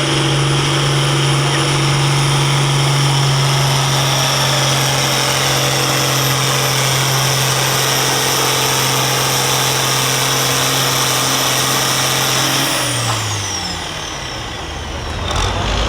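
Diesel farm tractor pulling a sled under full load, its engine held at steady high revs with a high whine over it. About 13 seconds in the engine note drops and the whine winds down as the throttle comes off, and the engine sound rises again near the end.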